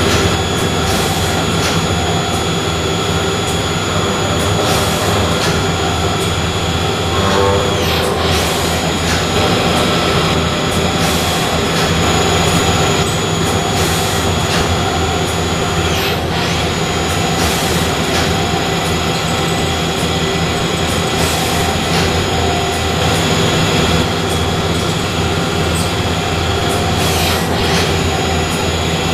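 Okuma Millac 852V machining centre running: a steady mechanical noise with high, even whining tones. The whine dips sharply and recovers three times, about eight, sixteen and twenty-seven seconds in.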